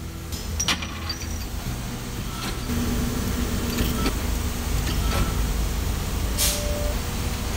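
Hydraulic press running with a steady low hum that grows louder about three seconds in, when a held tone joins it. Several sharp metallic clicks and clinks come through it, and there is a short hiss near the end.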